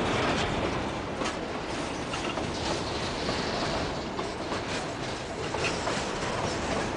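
Freight wagons rolling past right beside the rail: a steady rumble and rush of steel wheels on the track, with irregular sharp clicks and knocks as the wheels run over the rail.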